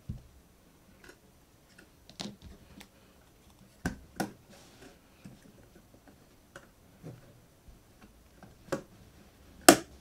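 Scattered sharp clicks, about seven at uneven gaps and the loudest near the end, as a pry tool works around the bottom cover of a Mac mini M4 and pops its clips loose.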